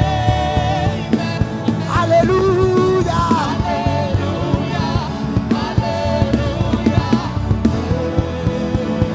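Live worship music: a singer holding long, wavering notes over a band with a steady drum beat.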